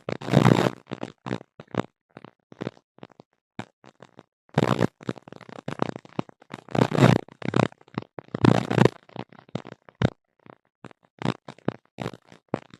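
Irregular bursts of rough, crackling noise that switch on and off abruptly with short dead silences between them: the unexplained noise intruding on a tablet's audio.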